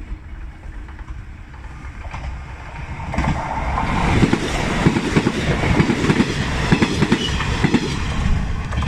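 381 series limited express electric train passing close by. Its wheels clatter over the rail joints, building from about three seconds in and loud from about four seconds on.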